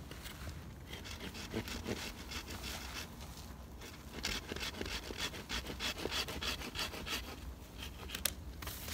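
A cheap hand saw cutting a branch of a fallen pine in steady back-and-forth strokes, quicker and louder from about halfway. One sharp click comes near the end.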